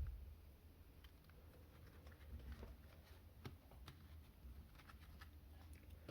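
Faint, scattered small clicks and light taps of hands handling small plastic items, with a low thump right at the start.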